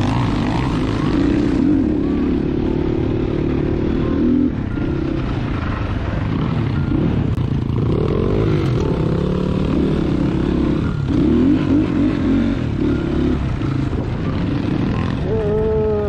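Crossfire Cross X 250 SE dirt bike engine running under way, its revs rising and falling as the throttle is worked over rough ground.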